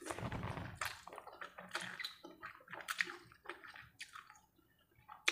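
Chicken noodles being slurped: a longer wet slurp at the start, then a run of short, wet sucking and chewing mouth sounds as more noodles are drawn in.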